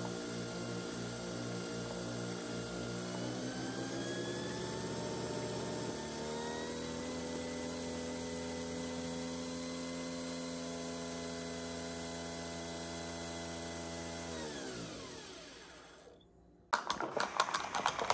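Nespresso Vertuo coffee machine brewing an espresso: a steady motor and pump hum that rises in pitch about three to six seconds in as the capsule spins up, holds steady, then winds down and stops about fifteen seconds in. Near the end a burst of clicks and knocks.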